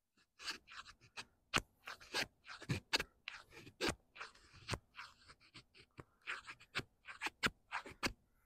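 Takumitak Solution D2-steel tanto fixed blade shaving thin curls off a stick to make a feather stick: a quick, irregular run of short scraping strokes, about two or three a second.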